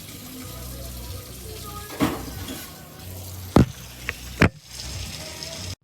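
A few sharp knocks and clunks from handling a broken electric coffee grinder, the loudest a little past halfway, over a steady hiss and low hum.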